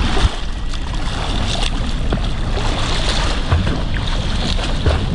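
Water splashing and churning from a swimmer's front-crawl arm strokes in the catch-up drill, with irregular splashes as the arms enter and leave the water. A steady low rumble of water and wind against a microphone at the water's surface runs underneath.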